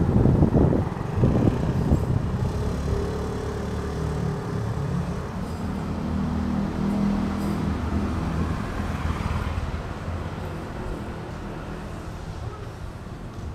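Road traffic: a motor vehicle's engine passes and fades away. Gusts of wind buffet the microphone at the start.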